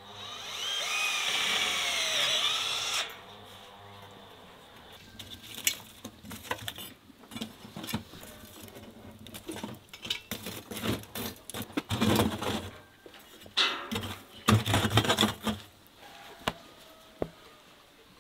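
A power drill runs in a short burst for about three seconds, its whine bending in pitch. Then comes a long run of metal scraping and knocking as a metal tool rakes embers and ash across the floor of a wood-fired oven. The raking is loudest in two spells in the second half.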